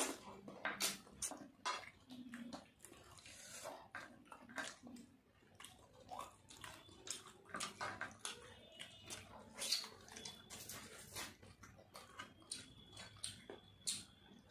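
Close mouth sounds of people eating rice and fish with their hands: irregular wet chewing and lip-smacking clicks, with some soft scraping of fingers mixing rice on plates.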